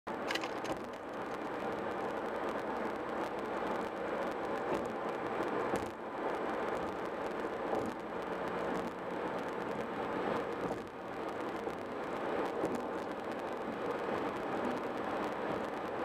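Tyre and road noise of a car driving at highway speed, heard from inside the cabin as a steady, even noise.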